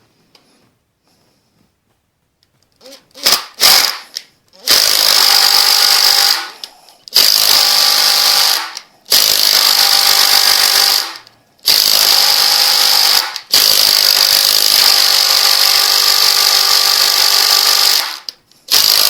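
A handheld power tool running in long bursts with short pauses between them, working a broken stud remnant that has started to turn out of a Ford flathead V8 block. A few brief blips come first, after a few quiet seconds.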